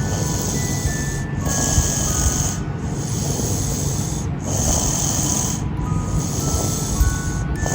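A person snoring, each rasping breath repeating about every three seconds.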